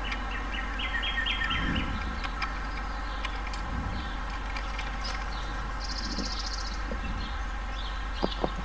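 Wild songbird chirping: a quick series of repeated high notes in the first two seconds, then a buzzy trill about six seconds in. A few sharp clicks come near the end.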